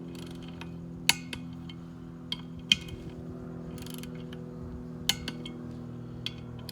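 About six sharp metal clicks and clinks from hand tools working the wheel's lug nuts, spaced irregularly, over a steady low hum.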